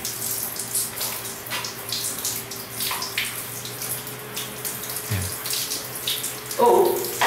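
Hand shower spraying water steadily onto a wet Siberian husky's neck and fur. A short vocal sound comes near the end.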